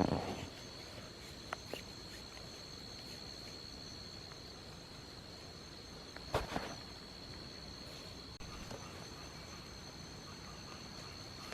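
Insects trilling steadily in the forest, one high even tone that holds throughout. A few faint ticks come about a second and a half in, and a short, louder knock or rustle about six and a half seconds in.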